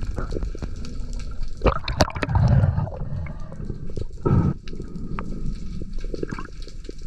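Underwater sound heard through a diving camera's housing: muffled rushing and bubbling water with scattered clicks and knocks, swelling louder about two seconds in and again after four seconds.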